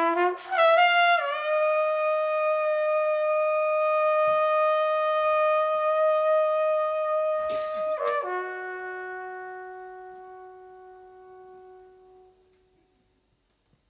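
Trumpet playing a few quick notes that settle into one long held note, then, after a breath about seven and a half seconds in, a lower note that slowly fades away.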